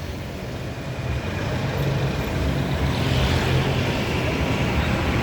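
Road traffic: a motor vehicle's engine running with a low, steady hum that grows louder between one and two seconds in.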